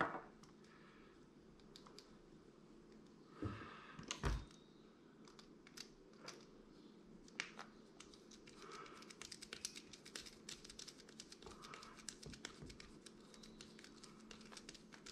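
Faint small clicks and scratches of a micro Phillips screwdriver driving the tiny screw back into a plastic key fob case. There are a couple of louder knocks a few seconds in, and quicker, denser ticking in the second half.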